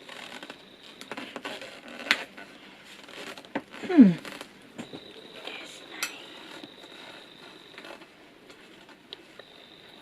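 Small clicks and knocks of a bowl and utensils being handled, with a short squeak that falls in pitch about four seconds in, the loudest sound.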